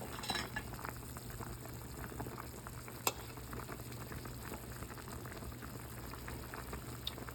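Pot of homemade chicken soup boiling, a steady fine crackle of bubbles, with one sharp click about three seconds in.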